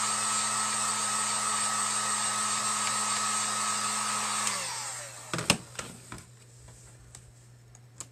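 Handheld hot-air dryer blowing steadily with a fan whine. It is switched off about four and a half seconds in, its pitch sinking as it winds down. A few sharp knocks follow as it is put down.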